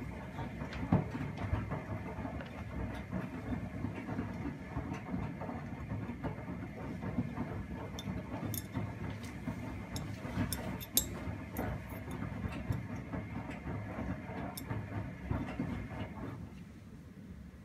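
Primus P6 commercial washing machine tumbling a sudsy load during a 95 °C whites wash: the drum motor running, with water sloshing, laundry thudding and a few sharp clicks against the drum. The tumbling stops about a second before the end, leaving a quieter hum.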